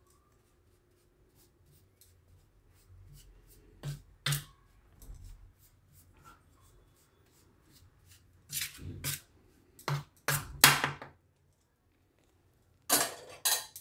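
Steel spoon scraping and clinking against a steel plate as it stirs dry spice powder mixed with a little oil, in scattered short strokes. A couple come about four seconds in, a cluster follows about two-thirds through, and more come near the end.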